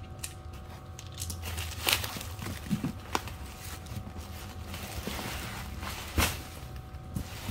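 Hands handling packaging: scattered rustles, clicks and knocks from plastic landing-pad legs, a cardboard box and bubble wrap, the loudest about two seconds in and about six seconds in. A faint low hum runs under it.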